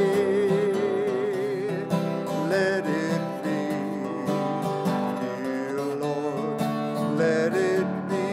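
Song with acoustic guitar accompaniment and a singer holding a long wavering note with vibrato for the first few seconds.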